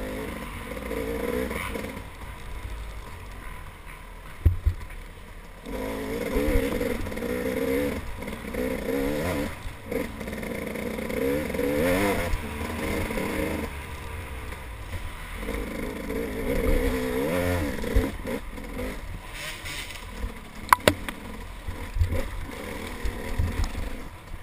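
Dirt bike engine ridden on a wooded trail, its pitch rising and falling over and over as the throttle is opened and closed, easing off a couple of times. A few sharp knocks cut in, about four seconds in and again later.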